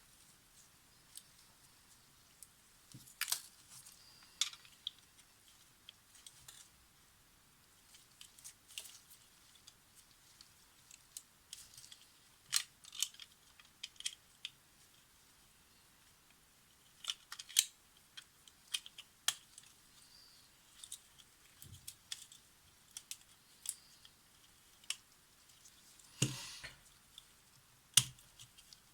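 Irregular small metallic clicks and taps of tiny screws, a small screwdriver and metal camera parts being handled while a Polaroid SX-70 camera is put back together, with a short rattle about 26 seconds in and a sharp click just after.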